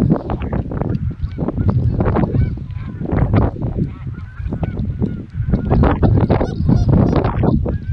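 Geese honking: many short, repeated honks, some overlapping, with no long gaps.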